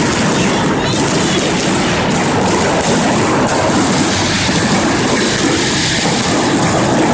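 Dense, continuous fireworks barrage crackling and booming on all sides, so many bursts overlapping that they merge into one steady rumbling crackle.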